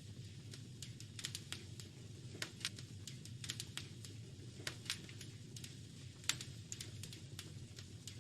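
Wood fire crackling in a fireplace: irregular sharp pops and snaps, a few each second, over a steady low rumble. One pop, a little past six seconds in, is louder than the rest.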